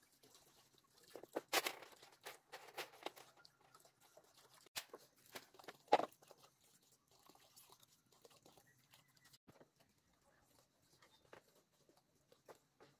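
Irregular clacks, knocks and crackles of bamboo poles and slats being handled, densest about a second or two in, with one sharp loud knock about six seconds in, then sparse quiet clicks.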